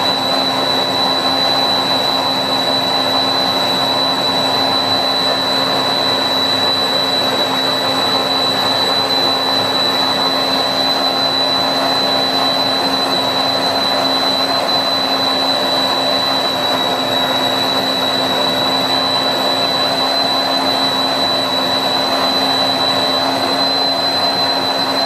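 Compact Cook Elite multicooker's motor blending hot vegetable soup at high speed: a loud, steady high-pitched whine over a rushing noise.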